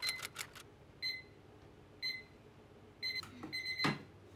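Electronic alarm clock beeping: a short high beep about once a second, then a quick run of beeps about three seconds in. A dull thump comes near the end.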